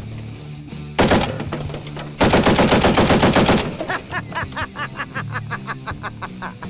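Browning M2 .50 caliber heavy machine gun firing on full auto: a short burst about a second in, then a longer burst of about a dozen rapid shots.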